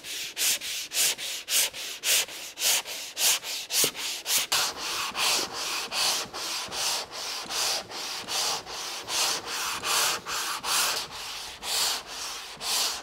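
Hand block-sanding of fairing compound on a fiberglass boat's cabin side, done with a sanding block and a long flexible sanding board pushed back and forth in steady scratchy strokes, about three a second. This is the guide-coat sanding stage of fairing, which shows up the low spots.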